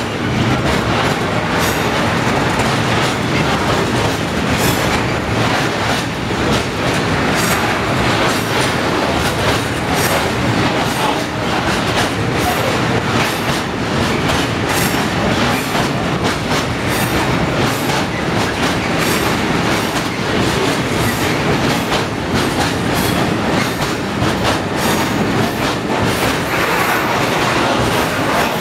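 China clay slurry tank wagons of a freight train rolling steadily past: a continuous rumble of wheels on rails with repeated clickety-clack as the wheels cross rail joints.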